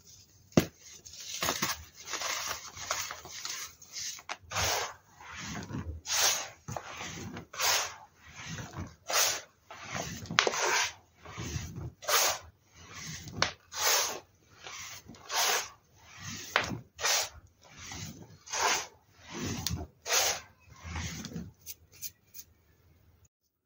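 Hands crushing crumbly baking-soda chunks and rubbing them through loose powder, with a gritty crunch in repeated strokes, a little more than one a second. There is a sharp snap about half a second in, and the crunching stops just before the end.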